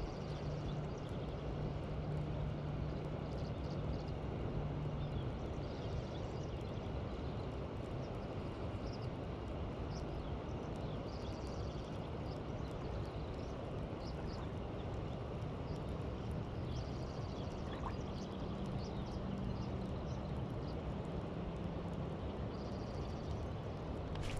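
Steady riverside ambience with scattered short bird chirps, and a faint low hum in the first few seconds and again later on.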